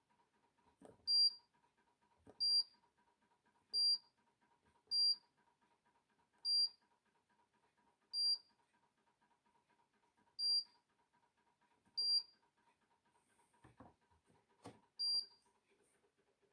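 Hoover Dynamic Next condenser tumble dryer's control panel: a click followed by a short high beep, nine times at uneven intervals of one to two seconds, with two more clicks without a beep near the end.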